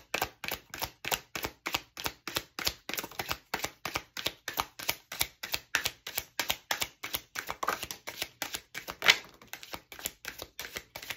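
A deck of oracle cards being shuffled by hand: a quick, even run of card slaps and clicks, about four or five a second, with one louder slap near the end.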